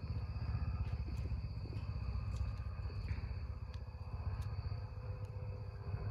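Steady high trill of night insects, likely crickets, over a constant low rumble on the microphone, with a few faint ticks.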